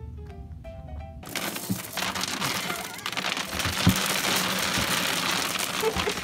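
Light music with short notes, then from about a second in a loud, dense rattle and rustle full of small clicks as a dog digs head-first in a plastic bin of dry pellets.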